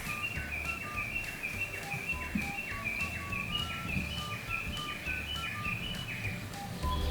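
Background music: a quick repeating figure of high, chirpy notes that slide downward, over a steady bass line.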